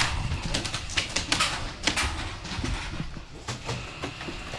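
Irregular sharp clicks and snaps of airsoft gunfire, with BBs cracking against plywood walls. They come thickest about a second and a half in.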